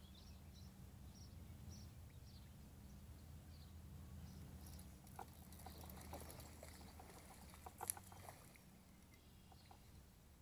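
Faint splashing and light ticks in the middle, sharpest about eight seconds in, as a small northern pike strikes a topwater wake bait. Under it runs a steady low rumble, and short high chirps repeat through the first few seconds.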